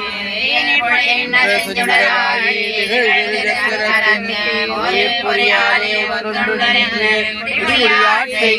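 A group of women chanting Tamil devotional verses together in a steady sing-song recitation (parayanam).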